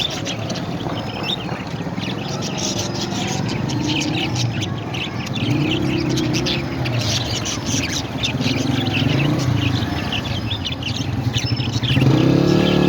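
Parrots chirping and chattering in quick, overlapping calls over a low droning background that grows louder near the end.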